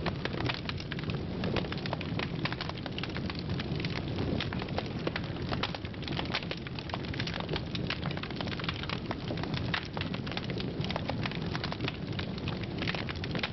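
Steady crackling static, thick with small clicks, over a low rumble.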